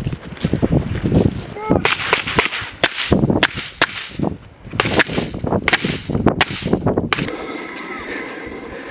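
Rifle fire: a quick, uneven string of about a dozen single shots, sharp cracks with a short echo after each, ending about seven seconds in.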